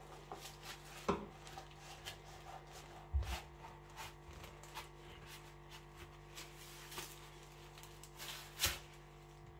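Kitchen knife sawing through a folded stack of thin pastry sheets interleaved with paper, giving faint scraping and rustling. There is a soft bump about three seconds in and a louder rustle near the end.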